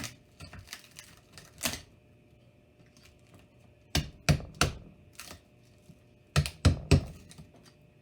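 Sharp hammer taps on a pointed tool driven against an iPhone's glass screen: one knock, then two quick runs of three.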